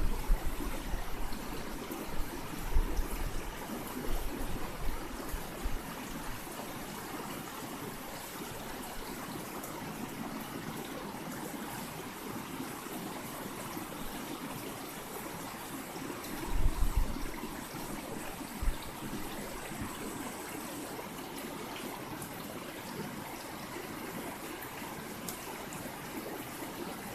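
River water flowing over stones: a steady rushing. A few short low rumbles come in the first few seconds and again about 17 seconds in.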